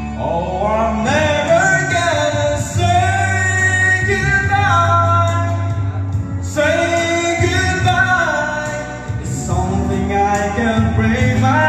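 A man singing a melody into a handheld microphone over backing music, in long held phrases with short breaks between them.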